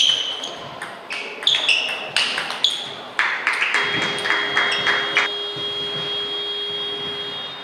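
Table tennis ball knocked back and forth in a rally, sharp clicks of bats and table bounces every half second or so. About three seconds in comes a quick run of clicks, then a steady high ringing tone with a lower hum under it that holds for about three seconds and stops near the end.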